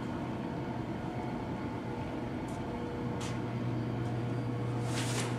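Steady low mechanical hum, with a few short, faint brushing or scuffing sounds about midway and near the end.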